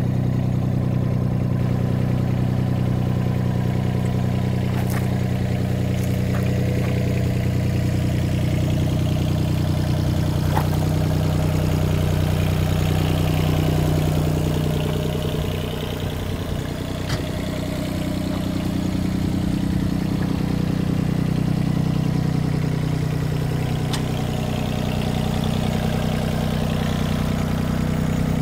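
Yanmar SV15 mini excavator's three-cylinder diesel engine idling steadily, with a few faint clicks over it.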